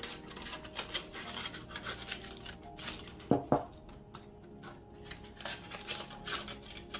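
Scissors snipping through aluminium foil while the foil crinkles and is torn away, in many short irregular crackles, with two brief sharper sounds about three and a half seconds in. Quiet background music underneath.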